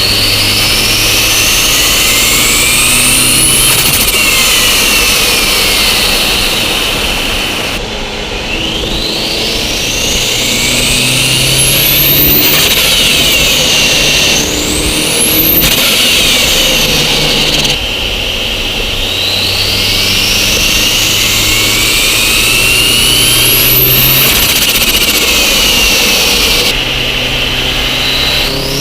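Holset HX35 twin-scroll turbocharger on a 1990 Mitsubishi Eclipse GSX's turbocharged four-cylinder spooling up under acceleration, heard from inside the engine bay. Its whine rises to a high whistle and falls away several times with the engine's pulls, cutting off suddenly as the throttle closes.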